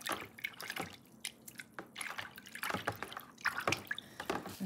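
A hand stirring water in a plastic basin, giving irregular splashes and drips as grated tar soap is dissolved.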